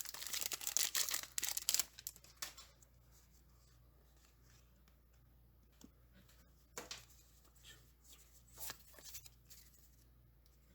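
Foil booster pack wrapper tearing open and crinkling for the first two seconds or so. After that, a few faint rustles and soft ticks of trading cards being handled.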